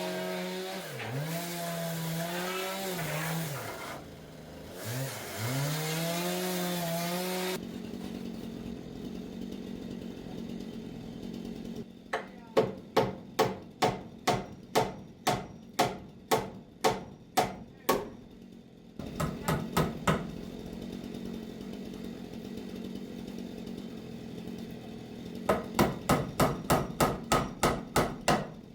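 A hammer driving nails into wood: a run of sharp blows about two a second, a short flurry, then quicker strikes about four a second near the end. Before the hammering, a motor hums steadily, its pitch dipping and recovering twice.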